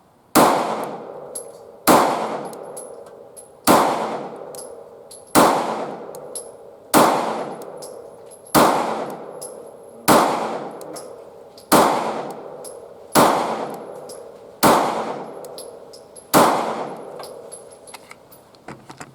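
Eleven pistol shots at a steady pace, about one and a half seconds apart, each followed by a ringing decay: one full 11-round magazine through a Taurus GX4 9mm.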